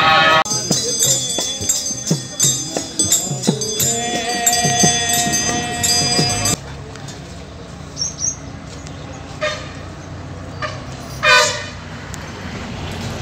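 Music with jingling percussion, which cuts off abruptly about halfway through and gives way to a quieter background with a couple of short voices.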